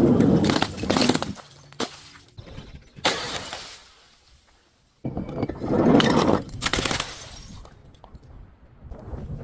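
Glass bottles breaking and shattering: a loud crash at the start and another about five to six seconds in, with smaller sudden crunches and clicks of glass between.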